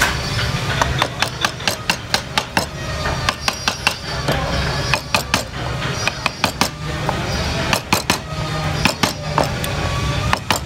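Mallet tapping a wood-carving gouge into the wood: runs of short sharp knocks, about three or four a second, broken by brief pauses. A steady low hum sits underneath.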